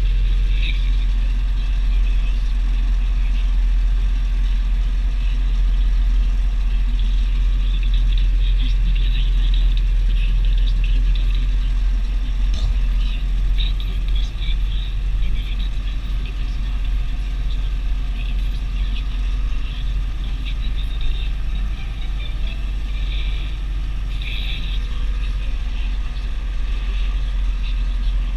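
Deutz DX 4.70 tractor's air-cooled six-cylinder diesel running steadily while driving, with a deep drone heard inside the cab and the cab rattling and hissing above it.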